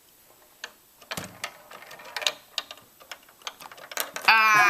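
Light, irregular clicks and taps of plastic Lego pieces as the built Lego game is played, then a voice cries out loudly near the end.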